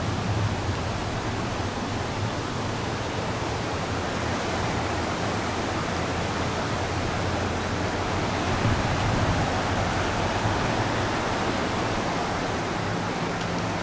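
Fast-flowing mountain river rushing over rocks in rapids: a steady, even rush of whitewater.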